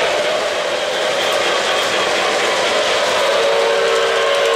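O-gauge model trains running on three-rail track with a steady rumble and rattle of wheels and motors. About three and a half seconds in, a deep, melodious chord whistle from the K-Line J1a Hudson's Lionel RailSounds starts and is held.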